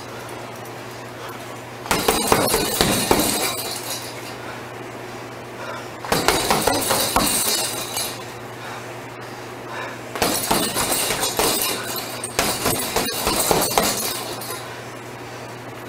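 Flurries of punches landing on a hanging heavy bag: rapid thuds with the bag's suspension chain rattling and jingling. There are four bursts about two seconds long, with short pauses between, over a steady low hum.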